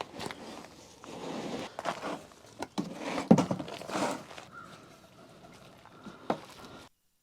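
Footsteps with irregular knocks and handling noises, the loudest knock about three seconds in; the sound cuts off abruptly near the end.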